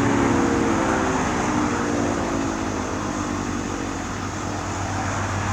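Sentry 16V1T-B outdoor warning siren winding down after its noon test: its tone slides lower and fades out about a second and a half in. A steady low hum remains after it.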